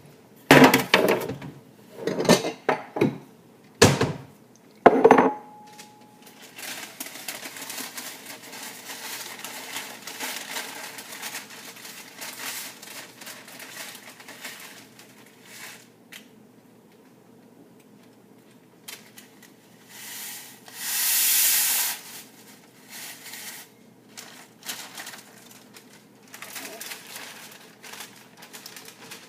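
Kitchen dishes and utensils clattering: several sharp knocks in the first few seconds, one leaving a brief ringing tone, then quieter scraping and rustling, with a louder rushing noise lasting about two seconds about two-thirds of the way through.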